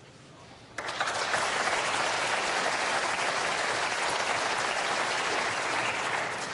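Snooker audience applauding. The applause breaks out suddenly about a second in, holds steady, and begins to fade near the end.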